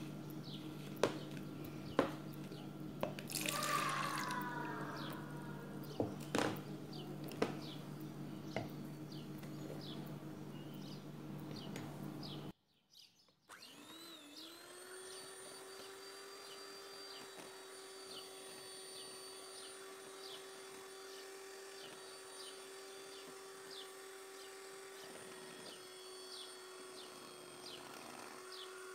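Knocks and a pour of liquid into a plastic measuring jug, then, after a cut about halfway through, an electric hand mixer starts up and runs at a steady pitch, whisking milk, cold coffee and whipped-topping powder.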